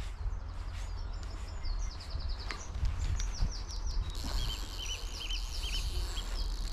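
Small songbirds singing: a quick high trill about a second and a half in, then runs of repeated chirping notes through the second half. A steady low rumble lies under them.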